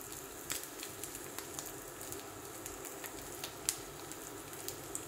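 Crushed boiled potatoes frying gently in oil in a nonstick pan: a low, steady sizzle with scattered pops and crackles, the loudest pop a little over two thirds of the way through.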